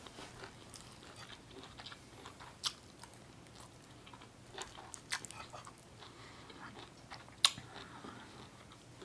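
Quiet chewing and mouth sounds of someone eating, with a few sharp clicks of a metal fork against a ceramic plate; the loudest click comes about seven and a half seconds in.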